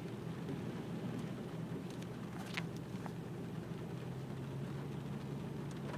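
Car driving at a steady pace: a steady low engine hum and road noise heard from inside the cabin.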